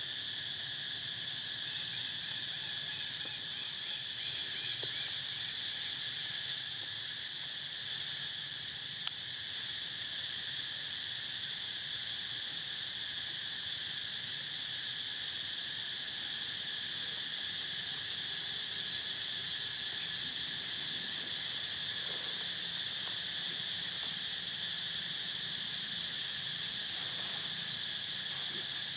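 Steady chorus of forest insects, a constant high-pitched shrill drone that does not let up, with one short click about nine seconds in.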